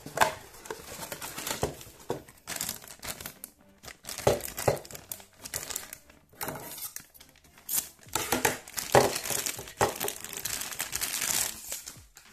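Plastic wrapper of a Happy Meal toy crinkling in irregular bursts as it is handled and opened by hand.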